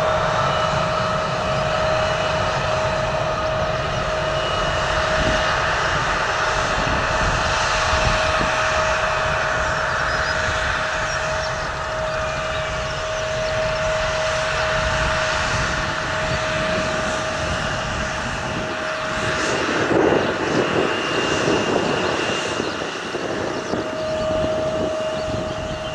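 Jet airliner engines running, a steady whine over a broad rush of engine noise, with gusty wind rumbling on the microphone. The noise swells briefly about twenty seconds in.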